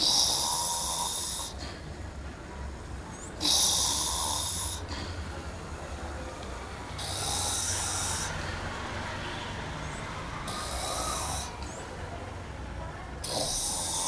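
A sleeping man snoring: five loud, breathy, hissing snores at even spacing, about one every three seconds.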